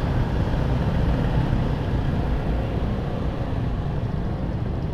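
Steady low rumble of a motorcycle being ridden through traffic: its engine running together with wind on the microphone.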